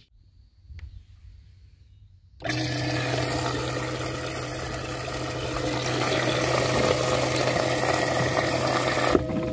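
A livewell pump starts about two and a half seconds in, and water jets from the aerator nozzle and splashes and bubbles into the livewell over a steady motor hum. The splashing eases a little near the end.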